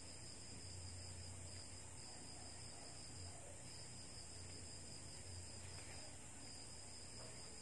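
Quiet room tone: a faint, steady high-pitched whine with a low hum underneath.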